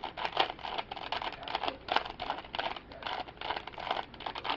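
Plastic 3x3 Rubik's cube being turned fast, its layers clicking and rattling several times a second, while the solver works to correct the orientation of the picture cube's centre pieces.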